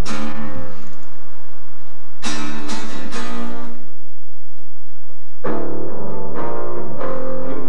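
Music: an acoustic guitar strumming chords, with no singing.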